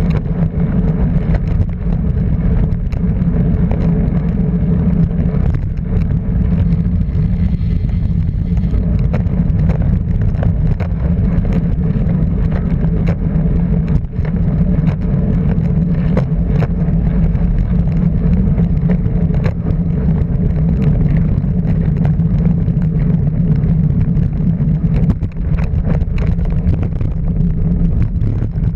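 Car being driven: a steady engine drone with road noise, broken by frequent short knocks and clicks.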